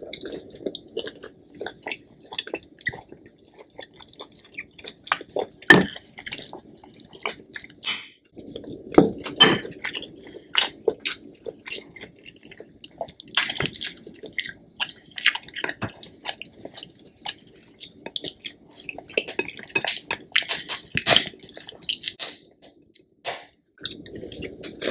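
Close-miked chewing of a piece of sausage from a spicy seafood boil, with wet mouth smacks and clicks at irregular intervals.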